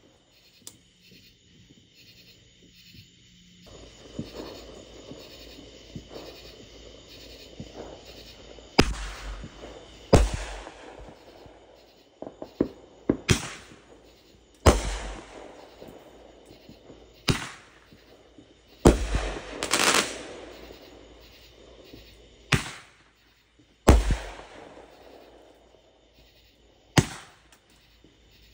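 Consumer fireworks going off: about a dozen sharp bangs at irregular intervals, a few in quick clusters, some echoing after the report. Crackling and hissing fill the gaps between them.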